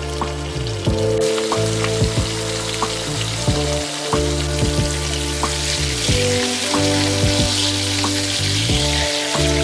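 Chicken thighs frying in butter in a pan over medium-high heat: a steady sizzle that grows louder about a second in. Background music plays under it.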